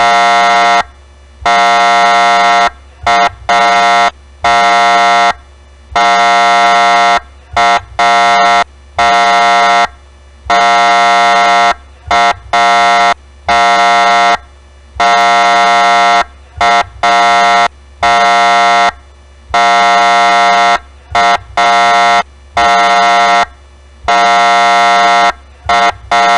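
Federal Signal police siren's horn tone sounded in about two dozen blasts of uneven length, some quick taps and others held a second or more, at one steady pitch with no rise or fall.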